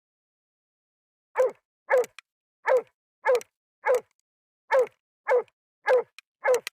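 Hunting dog barking in a steady rhythm, about one and a half barks a second, starting about a second and a half in after a short pause. This is the kind of barking a loose moose dog keeps up while holding a moose at bay.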